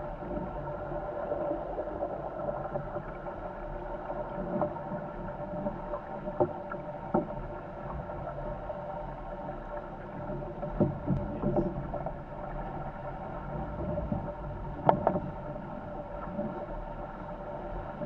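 A Corsair F-24 trimaran under sail at speed: a steady, muffled rush of water and wind along the hull, broken by a few sharp knocks, the loudest about fifteen seconds in.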